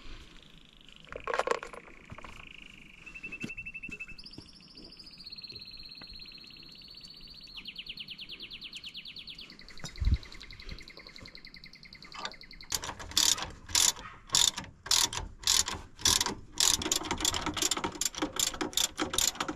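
Hand ratchet wrench clicking in quick back-and-forth strokes as a bolt is turned at an ATV's rear wheel hub, starting about two-thirds of the way in. Before that, a couple of single tool knocks.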